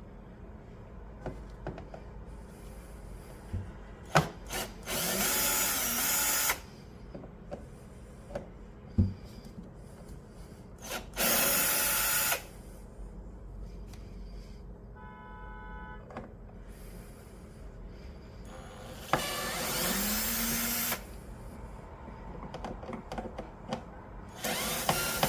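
Power drill driving small screws out of a watch winder's motor mount: four short runs of one to two seconds each, with light clicks between them.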